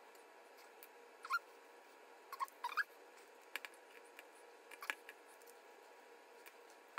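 Quiet handling of small bolts and nuts in a plastic Cuban yo-yo handline spool: a few short squeaks that rise in pitch and a couple of light clicks over faint room hiss.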